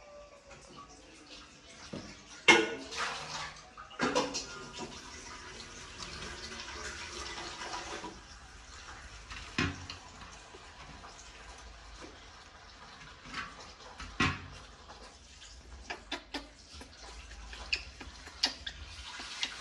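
Water running and splashing steadily, with scattered short knocks and clatters.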